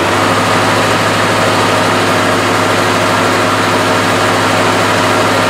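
Tractor engine running at a steady idle while the three-point hitch hydraulics raise the steel mesh carry basket.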